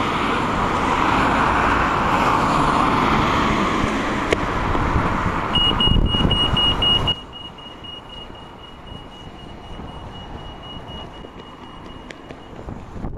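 Road traffic noise, then a high electronic beep that starts as quick pulses about five seconds in and becomes one steady tone lasting about seven seconds. The traffic noise drops away sharply about seven seconds in.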